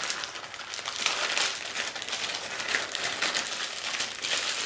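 Thin black plastic packaging crinkling and rustling as it is pulled open by hand to unwrap a small item.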